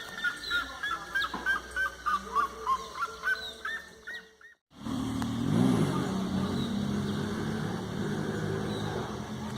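A bird repeating short, clear call notes about three times a second. After a sudden cut, a steady low hum with a brief rising-and-falling tone takes over.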